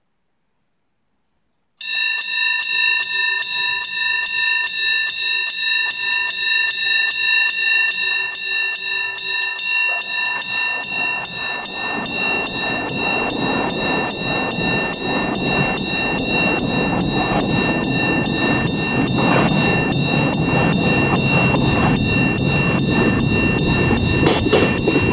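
Electric-bell level crossing signal starting about two seconds in, its hammer striking the gong in a fast, evenly spaced ringing that continues throughout, the crossing warning that a train is coming. From about halfway through, the rumble of an approaching train builds and grows louder under the bell.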